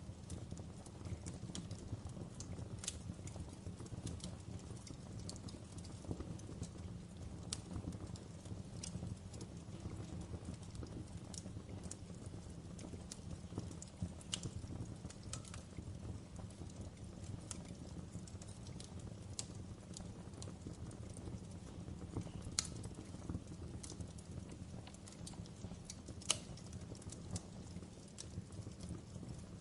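Wood campfire crackling: irregular sharp snaps and pops, a few louder than the rest, over a steady low rumble.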